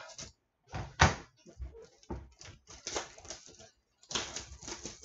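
Scissors cutting open the plastic shrink wrap of a sealed trading card box, with a sharp snip about a second in, then a run of crinkling and crackling of wrapper and cardboard as the box is opened.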